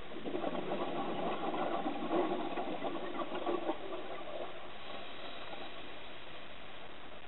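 Scuba diver exhaling through a regulator underwater: a stream of exhaust bubbles gurgling and crackling for about four seconds, then stopping.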